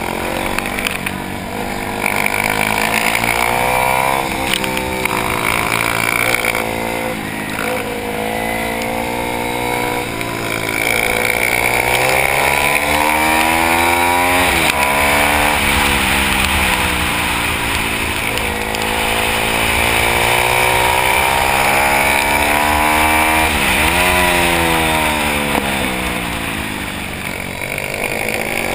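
A pit bike's single-cylinder engine at racing revs, the pitch climbing steadily through each gear and then dropping sharply at the shifts and under braking into corners, several times over.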